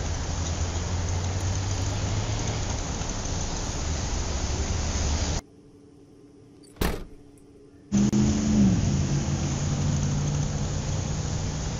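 Vehicle engine sound running steadily with a low hum. It cuts out about five seconds in, a single short whoosh follows, and it comes back near eight seconds with a pitch that falls, like an engine slowing down.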